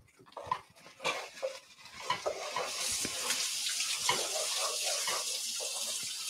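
A few light clinks and knocks, then a steady hiss that starts about two seconds in.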